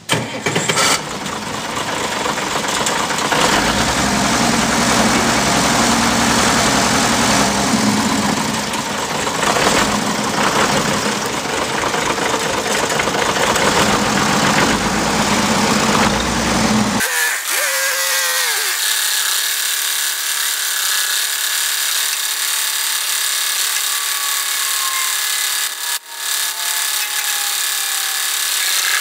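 Tractor engine running as the front-end loader bucket is lowered. About 17 seconds in the deep rumble drops away suddenly, leaving a steadier whine with a slowly falling tone.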